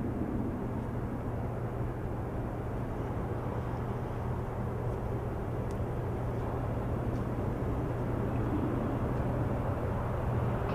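Steady low rumble of outdoor ambience with a constant low hum and a few faint ticks midway.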